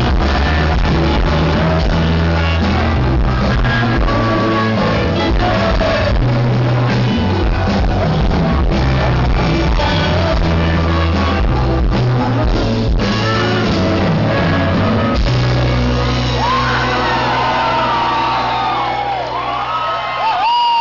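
Live band playing loudly with sung vocals, heavy bass and drums. In the last few seconds the bass thins out and the crowd's shouting and cheering rise over it.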